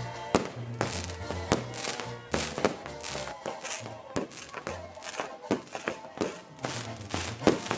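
Brass band music with a steady low bass line, cut through by sharp irregular bangs and crackling from a burning castillo firework tower, the loudest bang near the end.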